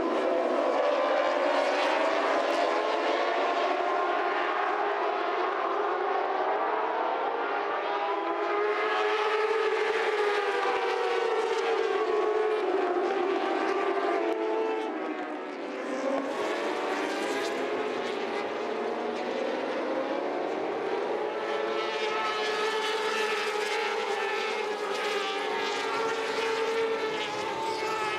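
A pack of Moto2 racing motorcycles at speed, several 600 cc four-stroke engines at once. Their pitch rises and falls as the riders accelerate, change gear and brake for corners, with a brief drop in level about halfway through.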